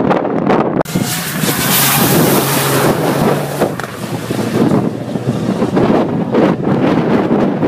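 A rally car passing close at speed and driving away, its engine note loudest about a second in and easing after three and a half seconds, with wind buffeting the microphone.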